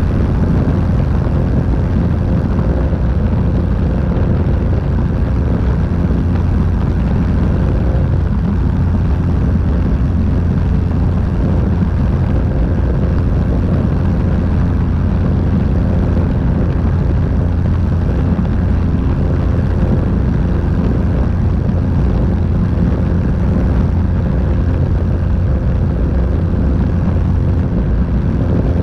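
Light aircraft in flight, heard from a camera mounted outside under the wing: the engine and propeller drone steadily at a constant pitch, mixed with the rush of airflow over the microphone.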